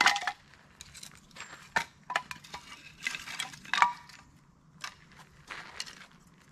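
Irregular clinks and knocks of camp gear being handled, a few of them with a brief metallic ring.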